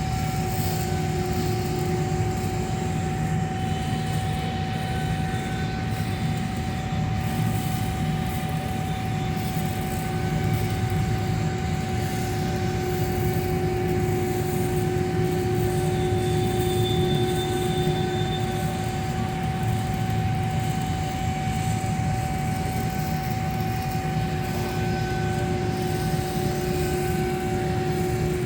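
Steady, unchanging machine drone from welding equipment, with a constant hum over an even hiss.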